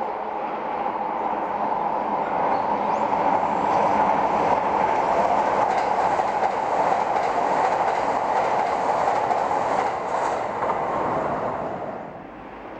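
Kuroshio limited express electric train passing at speed over a concrete viaduct: a dense rush of wheels on rails that builds over the first few seconds, holds, then drops away near the end.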